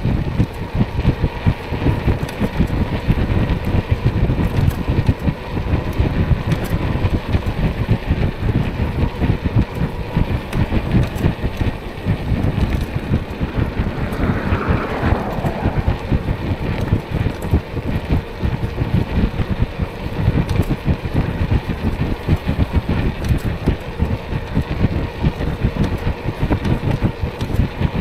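Wind buffeting the microphone of a moving e-bike, a dense, gusting rumble, mixed with road and traffic noise.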